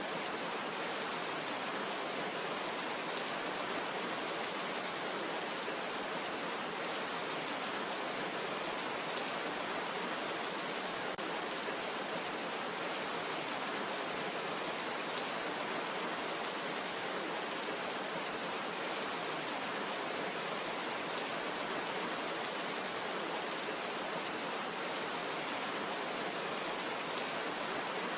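Steady rain falling, an even hiss without pauses or single loud drops.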